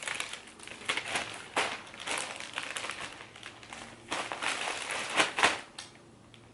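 Plastic mailing bag crinkling and crackling as it is sealed: the peel-off strip is pulled from the adhesive flap and the bag is handled shut. The crackles come in irregular bunches, with a short lull in the middle and the loudest a little past five seconds in.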